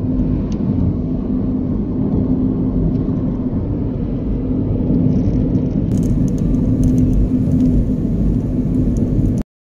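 Car driving on a paved road, heard from inside the cabin: a steady low rumble of engine and tyre noise with a steady hum, which cuts off suddenly near the end.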